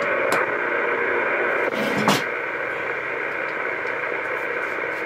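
Steady static hiss from the speaker of a Uniden Bearcat 980 CB radio, the channel held open by an incoming AM signal, with a couple of faint clicks.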